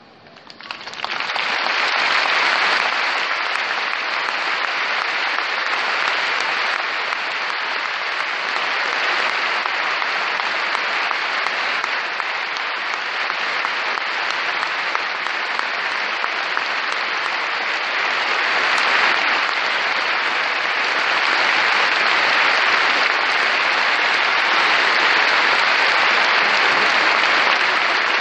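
A large audience applauding: the clapping swells in about a second in and goes on steadily, a little louder in the later part.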